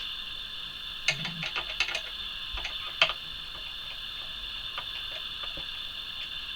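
Small clicks and taps of a screwdriver and screws working against the plastic base of a 3D printer kit. There is a quick cluster of them between one and two seconds in and a single sharper click about three seconds in, over a steady high-pitched whine.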